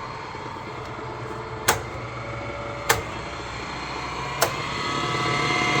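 Myford CB cylindrical grinder's motorized workhead running, with three sharp clicks as its speed is changed. The motor grows louder through the second half and a steady whine comes in near the end.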